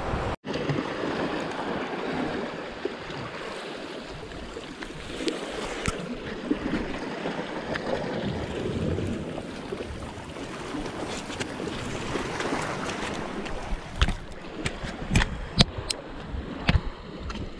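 Sea waves washing in a steady rush, with wind on the microphone; several sharp knocks near the end.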